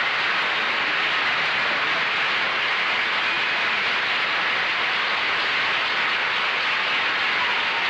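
Studio audience applauding: a long, steady, loud ovation.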